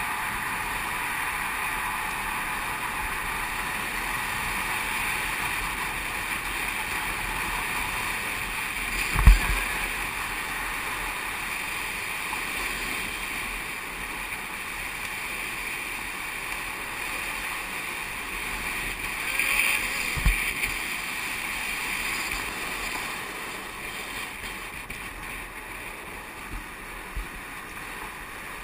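Steady rush of wind and longboard wheels rolling fast on asphalt during a downhill run, with one sharp thump about nine seconds in and a short louder rush with a knock around twenty seconds.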